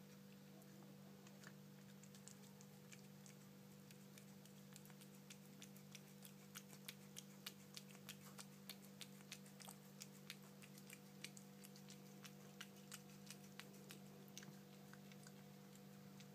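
A cat eating a strawberry held out to it: faint, quick mouth clicks as it licks and chews, about two a second through the middle, over a steady low hum.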